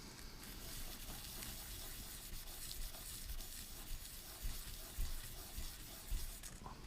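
Soft, steady rasping of a metal ball-differential plate being rubbed in figure-eight strokes on fine sandpaper, wearing the plating off the plate's face.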